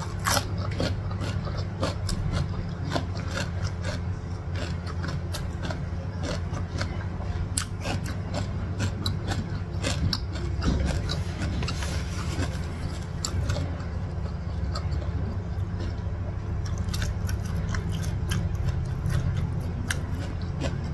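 Close-miked chewing of a mouthful of raw cucumber: many small wet crunches and mouth clicks, over a steady low hum.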